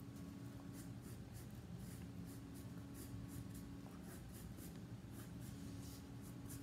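Pencil sketching on paper: quick, irregular scratchy strokes, about two a second, over a faint steady hum.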